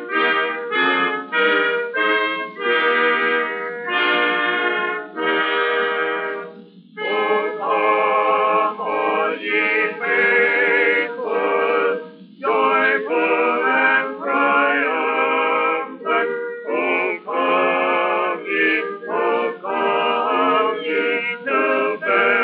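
Orchestra music from a 1920 acoustic 78 rpm record, a tune played in short notes at first and then in longer, wavering notes, with brief breaks about seven and twelve seconds in.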